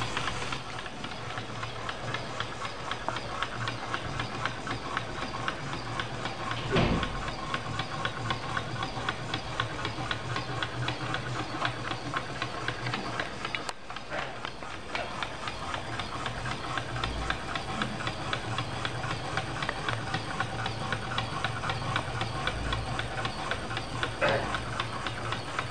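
Small geared motor of a Robotis OLLO plastic rhinoceros robot running steadily as it walks, with a continuous hum and a dense rapid clicking from its plastic gears and legs. A short falling sweep comes about seven seconds in and again near the end.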